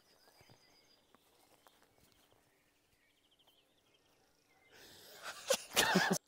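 Quiet outdoor ambience with a few faint bird trills. Near the end comes a loud rush of noise with a wavering pitched edge, which cuts off suddenly.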